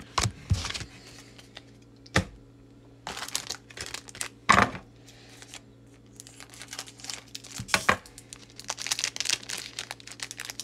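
Foil Pokémon booster pack wrapper crinkling as it is handled and torn open, with a few sharp snaps and taps between, the loudest about four and a half seconds in. The crinkling grows dense over the last few seconds.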